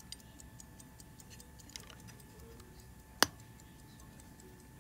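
Hamilton Grade 927 17-jewel pocket watch movement ticking quickly and faintly, about five ticks a second. A little over three seconds in, the gold-filled hunter case snaps shut with one sharp click.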